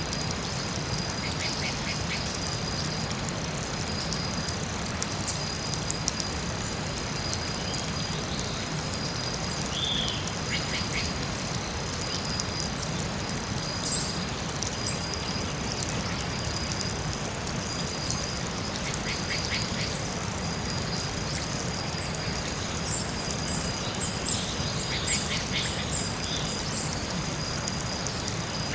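Forest soundscape: a steady high-pitched buzz under a low, even rumble, with scattered short animal calls coming in quick clusters of three or four and a few high chirps, busiest in the second half.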